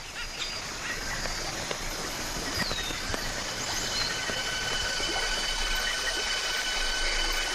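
Rainforest night chorus of calling insects: a steady hiss with several high, sustained whining tones and one brief falling whistle, slowly swelling.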